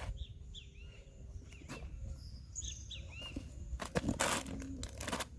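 A bird calling with short, high, arched chirps, about five of them over the first few seconds, over a faint outdoor background. A brief burst of rustling comes about four seconds in.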